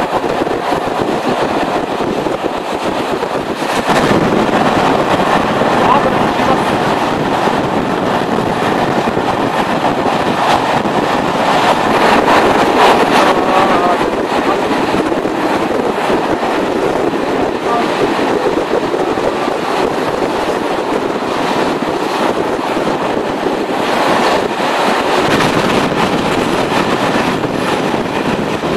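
Passenger train running along the line at speed, heard from the carriage window: a steady rumble of wheels on rails with rushing air.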